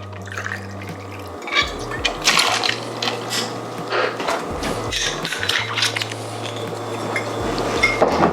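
Vodka being poured from a jigger into a cocktail shaker, with splashing liquid and light clinks of glass and metal, over background music with a steady bass line.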